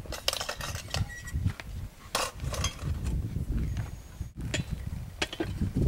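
Wind buffeting the microphone in a low, uneven rumble, with a few sharp clinks and knocks scattered through it.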